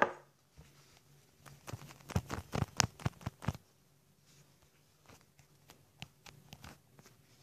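Handling noise: fingers rubbing and tapping on the recording device right by its microphone. A quick run of clicks and knocks comes from about a second and a half to three and a half seconds in, followed by a few faint taps.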